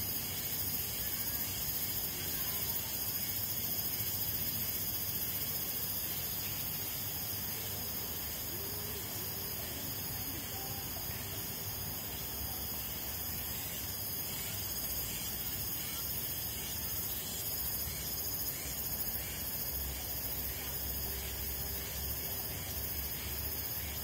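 A steady high hiss of outdoor background noise.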